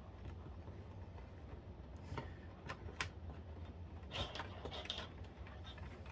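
Scattered light clicks and brief rustles of hands fitting small plastic console parts and wiring into place, over a low steady hum.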